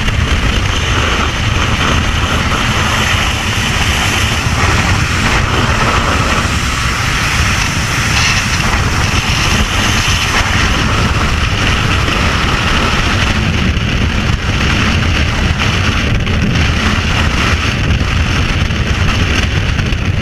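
Rushing air of a skydiving freefall buffeting the camera's microphone: a loud, steady rush with a heavy low rumble.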